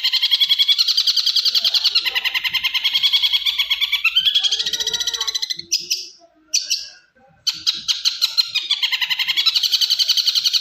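Long-tailed shrike (cendet) singing a fast, chattering run of evenly repeated notes, several a second. The song breaks off for about two seconds just past the middle, then starts again.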